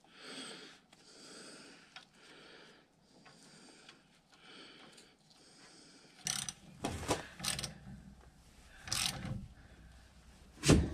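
Close, heavy breathing about once a second, then a run of metal clicks and clanks from a wrench worked on a truck's rear brake caliper, ending in one loud metallic knock near the end.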